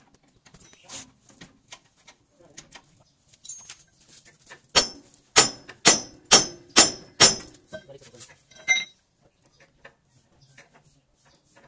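Hammer blows on the steel steering linkage of a truck's front axle: six sharp, ringing metallic strikes about half a second apart, then one more after a short pause.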